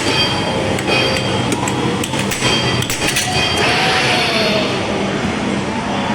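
Air hockey puck and mallets striking repeatedly in quick, irregular clacks over roughly the first three seconds, some hits set off by the table's short electronic sound effects. A steady dense background runs underneath, and a noisy swell with a brief gliding tone comes about four seconds in.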